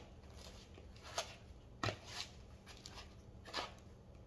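Metal pastry blender cutting chilled butter into a dry panko, cracker and Parmesan crumb mixture in a plastic bowl: a few short, irregular scraping crunches.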